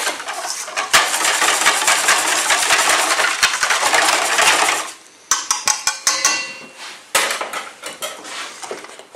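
A whisk beating batter in a bowl, a fast, steady clatter that stops about five seconds in. It is followed by a few separate sharp knocks and clinks against the bowl that ring briefly.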